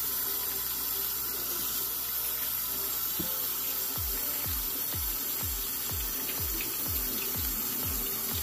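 Water tap running into a sink in a steady rush. About halfway through, an electronic music beat with a deep kick about twice a second comes in underneath.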